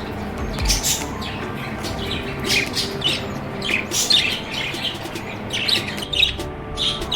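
Budgerigars chirping and chattering in a quick, continuous run of short high calls.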